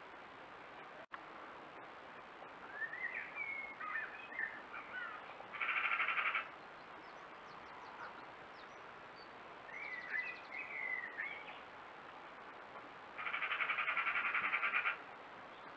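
Wild birds calling: short chirping, warbling phrases and, twice, a rapid rattling call about a second long, which is the loudest sound.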